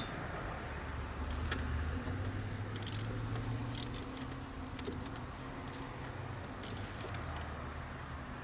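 Irregular light metallic clicks and clinks of a socket wrench and spark plug socket being worked into the plug wells to remove the spark plugs, some in short quick clusters, over a faint low hum.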